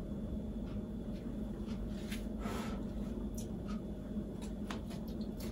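Eating a bite of bean sprout pancake: soft chewing and mouth clicks, with a short noisy breath about two seconds in, over a steady low hum.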